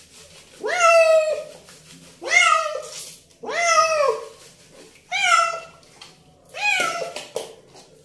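Black-and-white tuxedo cat meowing over and over, about five long meows spaced roughly a second and a half apart, each rising then sagging at the end. These are distress calls from a cat being held down and bathed.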